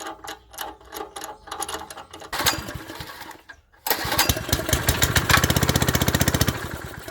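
Honda GX160 single-cylinder four-stroke engine on a plate compactor being pull-started: after a series of clicks it fires about four seconds in and runs loudly for a couple of seconds before dying away. It runs only on fuel dropped into the carburettor, the sign the carburettor is not feeding fuel.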